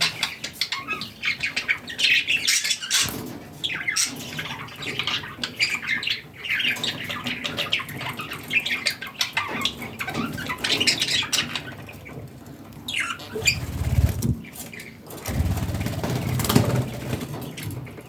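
Budgerigars chirping, chattering and squawking in quick, busy strings of short calls. Two stretches of low rumbling noise come in the second half.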